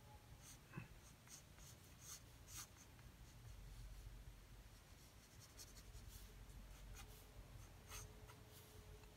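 Faint scratching of a graphite lead-holder pencil on drawing paper: a series of short, irregular pencil strokes.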